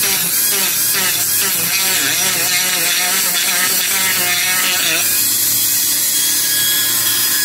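Dremel rotary tool grinding into the dry deadwood of a privet (ligustro) bonsai trunk. The motor's whine wavers up and down in pitch as the bit bites into the wood, then holds steadier about five seconds in.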